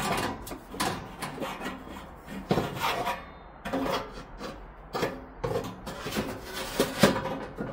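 A new stainless steel heat shield being fitted into a Napoleon Prestige P500 gas grill, scraping and clacking against the grill's metal in a run of irregular scrapes and sharper knocks.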